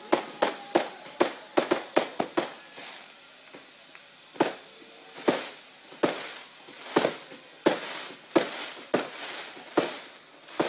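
New Year fireworks going off: a fast run of about nine sharp bangs in the first two and a half seconds, a short lull, then single bangs just under a second apart.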